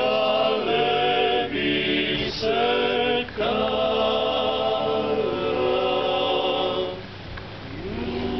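A klapa, a Dalmatian male a cappella ensemble, sings in close harmony, holding long chords with short breaks between phrases. About seven seconds in the voices drop away, and an accordion begins to sound near the end.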